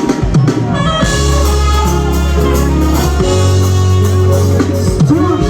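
Loud music over a stage PA during a sound check, with a deep sustained bass line that comes in about a second in.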